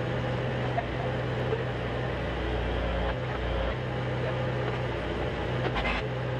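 Tractor engine running steadily under a backhoe working its hydraulic arm to lift a truck engine. The low engine note swells briefly a few times, about three seconds in and again near the end.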